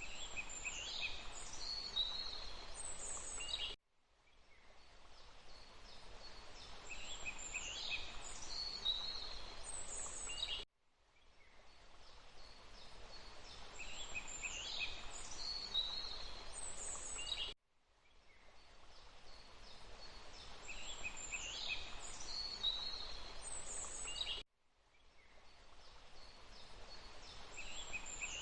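Steady rush of running water with small songbirds chirping and whistling high above it. The recording is a short loop: the sound cuts out abruptly about every seven seconds and fades back in, repeating the same bird calls each time.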